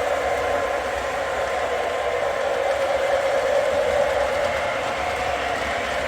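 O gauge model train running steadily on the layout track, a constant motor whine and rolling wheel noise.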